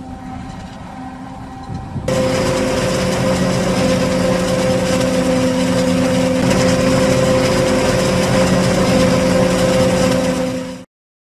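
New Holland FR500 forage harvester and tractor engines running while chopping maize. About two seconds in, this switches suddenly to a louder, steady machine drone with a constant high whine, which cuts off abruptly near the end.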